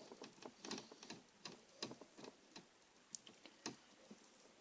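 Faint, irregular small clicks of a screwdriver turning a small motherboard screw into a laptop's plastic chassis.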